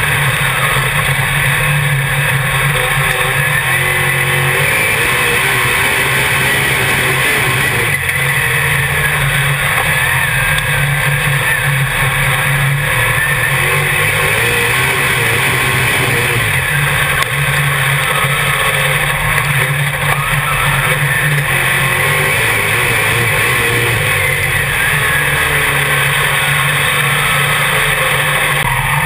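Dirt modified race car's V8 engine, heard loud from inside the cockpit at racing speed, its pitch rising and falling again and again as the car goes on and off the throttle around the dirt oval.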